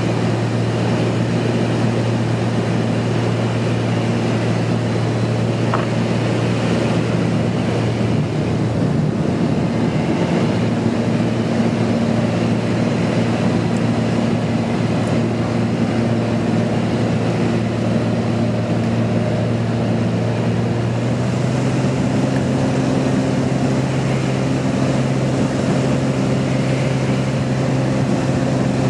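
Light aircraft's piston engine and propeller droning steadily in the cabin on final approach. Its pitch steps up slightly about two-thirds of the way through, a small power change.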